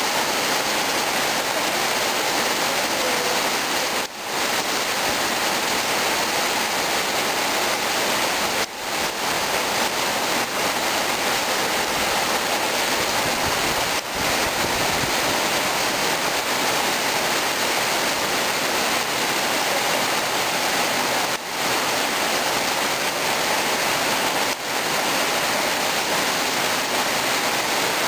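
Steady rain falling on the wet yard and patio, an even hiss with no pitch, dipping briefly a few times.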